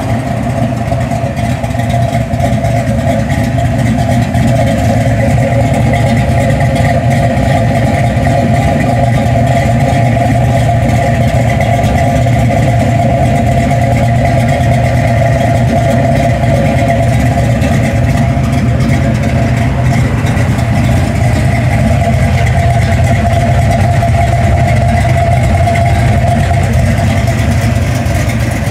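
1967 Ford Mustang's 306 Blueprint crate small-block V8 idling steadily and loudly through Tri-Y headers, an X-pipe and Flowmaster 40 series mufflers.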